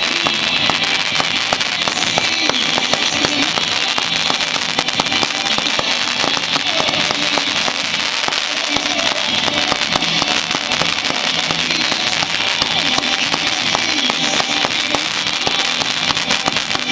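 Fireworks firing fans of comets in quick succession, a dense unbroken stream of pops and crackles, with music playing over it.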